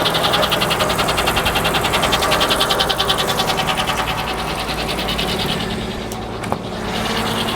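A Frick sawmill's power engine running steadily, with a fast, even rhythmic clatter over it that fades out about five seconds in, and one short click near the end.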